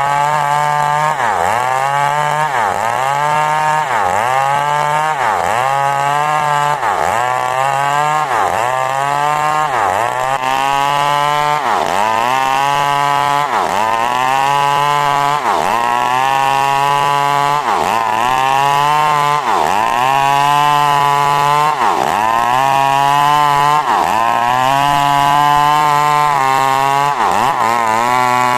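Two-stroke chainsaw cutting coconut wood at high revs. Its pitch dips and recovers in a regular rhythm about once a second as the engine bogs under each push into the cut.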